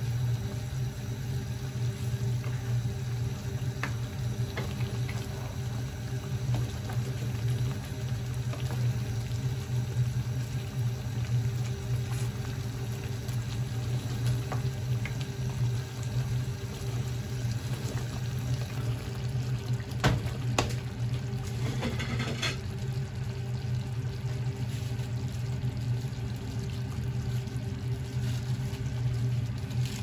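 Creamy sauce simmering and bubbling in a nonstick frying pan over a gas burner, over a steady low hum. A plastic spatula stirs and scrapes in the pan, with a few sharper clicks and scrapes about twenty seconds in.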